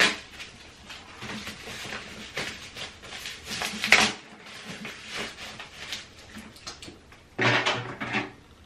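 Paper rustling and crinkling in irregular bursts as white packing paper is handled, the loudest crinkle about four seconds in. A short hummed voice sound comes near the end.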